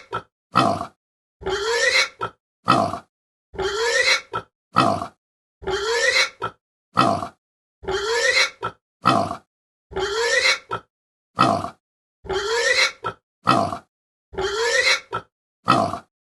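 Pig grunting: a longer grunt rising in pitch and a short one after it, the pair repeating about every second with silence between.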